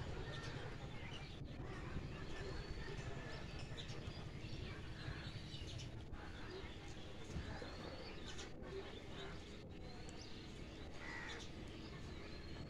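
Birds calling now and then, short scattered calls over a steady low outdoor rumble.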